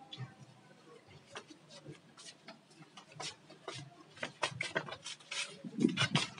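Flip-flop footsteps slapping on concrete, a light irregular tapping about twice a second that grows louder near the end, with a few duller thuds and rustling as a cloth is picked up.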